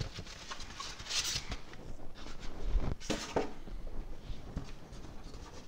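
Rummaging inside a cardboard shipping box: irregular scraping and rustling of packing with scattered knocks, and a dull thump a little under three seconds in.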